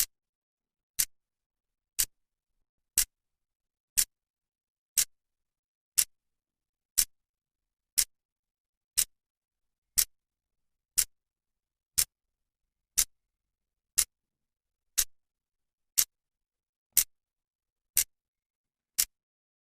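Clock's second hand ticking once a second, a sharp dry click each time with silence between.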